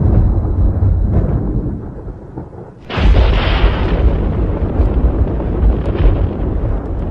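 Thunder from a lightning strike: a heavy rumble dies down, then a sudden sharp crack about three seconds in, followed by loud rolling rumble.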